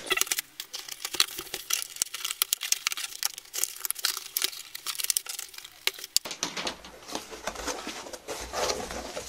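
Cardboard box being opened by hand: its plastic packing straps are pulled off and the cardboard flaps are torn open. A dense run of crackles, rips and clicks lasts about six seconds, then turns to softer rustling and handling of the cardboard.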